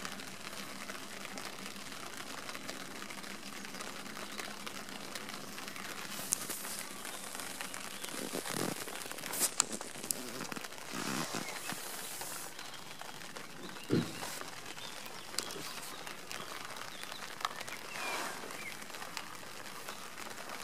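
Rain pattering steadily on a tent, with fabric rustling and a few sharp knocks in the middle as the tent and camera are handled.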